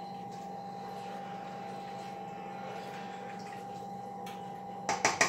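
Faint stirring of a thick sauce in a pot, over a steady hum. Near the end comes a quick, even run of about eight sharp metallic taps: a spoon knocked against the pot.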